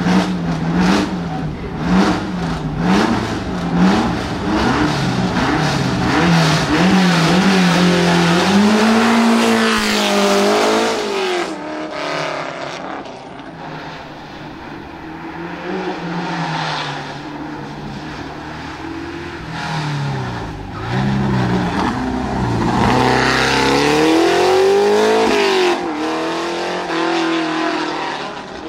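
1972 De Tomaso Pantera Group 4's Ford 351 Cleveland V8 revved in quick repeated blips at the start, then launching hard with the revs climbing and dropping through gear changes. It fades quieter mid-way, then comes back loud near the end, revs rising and falling again as the car accelerates out of a hairpin.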